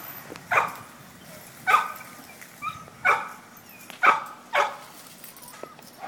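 Pit bull barking: about five loud, short barks at uneven intervals, with a smaller one between them.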